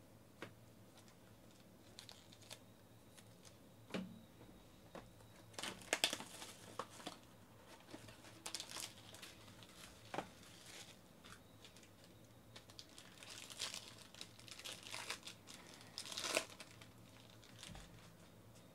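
Foil card-pack wrapper and plastic packaging crinkling and tearing as a box of baseball cards is opened by hand, in irregular bursts, loudest about six seconds in and again near the end.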